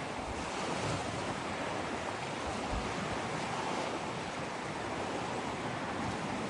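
Steady, even rushing of sea water.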